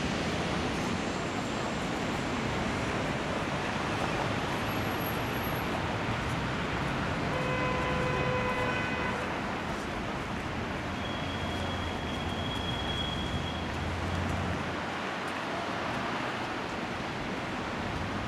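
Steady city traffic noise, with a short pitched tone about eight seconds in.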